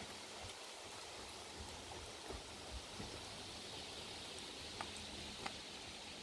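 Faint steady outdoor hiss with a few soft, dull thuds from a horse's hooves trotting on arena sand.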